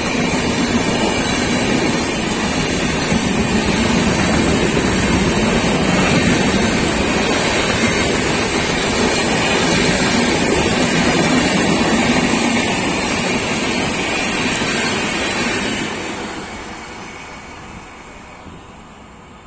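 Orange-and-grey LHB passenger coaches of an express train rolling past on the near track, a steady rush of wheels on rail that fades away from about sixteen seconds in as the last coach draws off.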